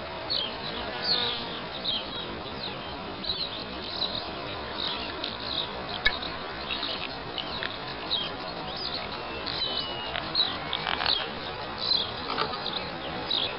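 Many small birds chirping together: a dense, continuous chatter of short, high, downward-sweeping chirps over a steady background hiss.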